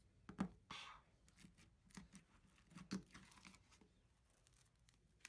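Floam slime packed with foam beads crackling faintly as it is pulled from its plastic tub and squeezed by hand, in a few scattered crunches about a second apart.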